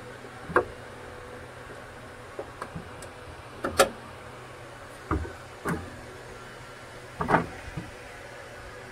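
About six sharp metal clicks and taps as fingers work a small bushing and clip off a shaft inside a Ricoh DX2430 duplicator; the loudest comes a little before the middle. A steady faint hum runs underneath.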